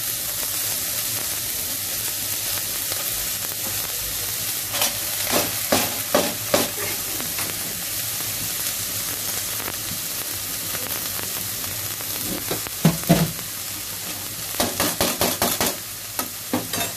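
Sliced onions and green chillies sizzling steadily in mustard oil in a steel pan as they are browned. A metal spatula scrapes and clinks against the pan in short runs, about five to seven seconds in, around thirteen seconds, and again near the end.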